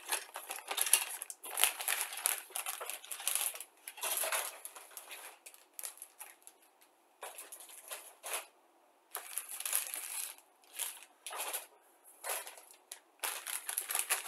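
Clear plastic kit bag crinkling and rustling in irregular bursts as plastic model-kit sprues are slid into it and handled, with a couple of short pauses.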